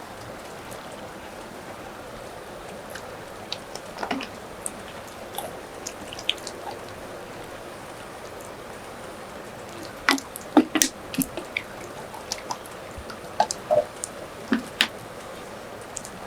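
Steady rain, with scattered drips and small clicks and taps that come thickest about ten seconds in and again a few seconds later.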